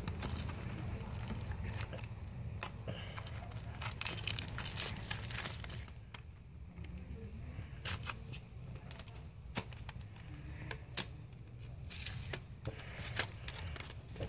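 Clear plastic wrapping of a Shopkins toy blind basket being torn open and crinkled by hand, in irregular bursts of crackling with sharp snaps and a quieter spell midway.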